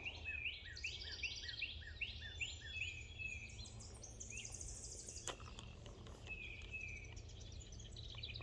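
A songbird singing outdoors: a run of short, quickly repeated chirps about three a second, then a higher trill and a few more notes later on, over a steady low rumble of ambient noise. A single sharp click about five seconds in.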